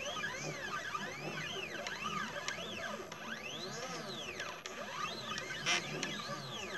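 Stepper motors of a CNC 2418 laser engraver whining as the laser head traces an engraving pattern. Each move is a tone that rises and then falls in pitch as the axis speeds up and slows down. There is a short burst of noise near the end.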